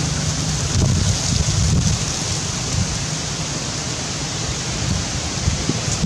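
Wind buffeting the microphone: a steady hiss with a low rumble underneath.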